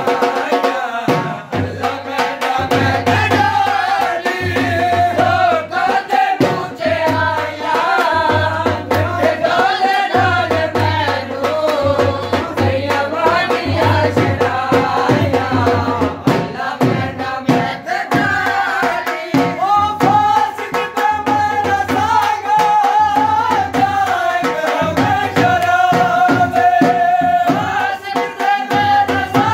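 A song: a voice singing a wavering melody over a steady drone, with drums beating a brisk rhythm.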